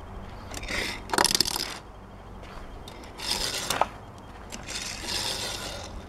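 Hot Wheels die-cast toy car scraping and rolling across a flat board surface, in three separate passes of about a second each.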